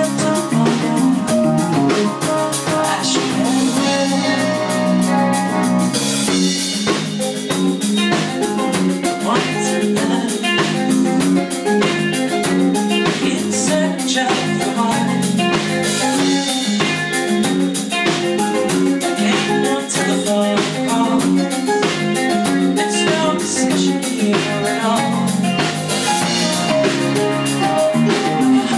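Live indie-rock band playing a song: electric guitar, five-string electric bass and keyboards over a drum kit with a steady beat.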